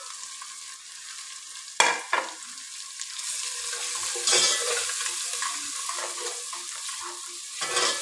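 Onions and ground spices frying in oil in an aluminium pot, sizzling steadily, the spices just tipped in. A metal ladle knocks sharply against the pot about two seconds in, and the sizzle grows louder from about three seconds on as the mixture is stirred and scraped.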